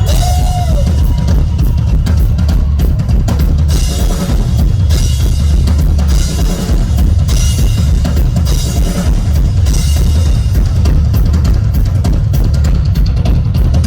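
Rock drum kit solo: a dense, continuous run of fast strikes with heavy bass drum and ringing cymbals.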